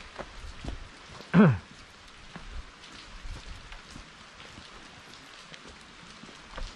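Rain falling, an even hiss with scattered drop ticks. About a second and a half in, one brief loud call slides steeply down in pitch.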